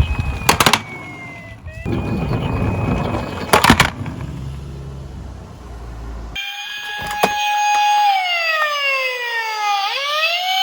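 Toy police minicar rolling down a slope, with a low rumble and two sharp clatters under a steady electronic tone. About six seconds in, a clean synthesized police siren takes over, holding one pitch and then gliding down before rising again near the end.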